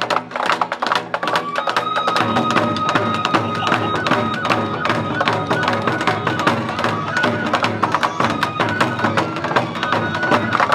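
Shishimai (lion dance) festival music: rapid, dense drumming with a high, held melody line that enters about two seconds in and moves up and down in steps.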